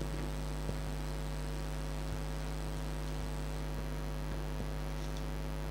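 Steady electrical mains hum, a low drone with a ladder of fainter overtones above it, with a few faint clicks.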